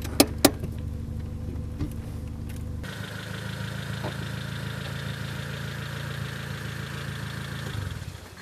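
Car engine running steadily, heard from inside the cabin, with two sharp clicks just after the start. About three seconds in, the sound changes abruptly to the car's engine running as heard from outside, which fades away near the end.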